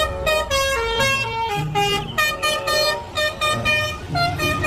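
Indonesian coach's 'telolet' multi-tone musical air horn playing a quick tune of stepped notes over a low rumble.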